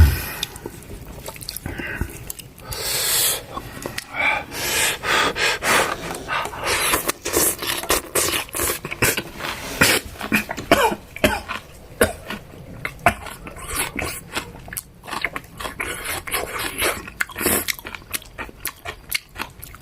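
A man eating with chopsticks from a pot: many irregular clicks and scrapes of the chopsticks against the cookware, along with chewing and a few short coughs.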